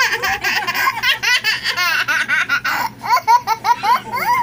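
A young child laughing hard with delight: a long string of quick, high-pitched peals of laughter with short catches of breath between.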